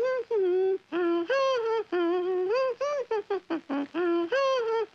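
A cartoon voice humming a bouncy wordless tune in short notes that hop up and down, several to the second.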